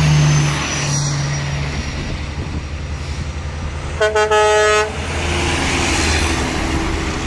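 Heavy trucks' diesel engines rumbling as they drive past close by. About four seconds in, a truck's horn sounds in a few quick blasts.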